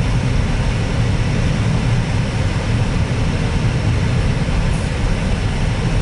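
Steady low rumble of a Jeep's engine and tyre noise on a snow-covered road, heard from inside the cabin while driving.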